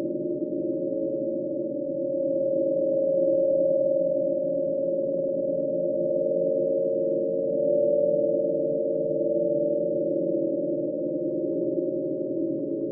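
Synthesized ghost sound effect: a steady drone of several low tones held together, wavering slightly and swelling gently in loudness a few seconds in and again past the middle.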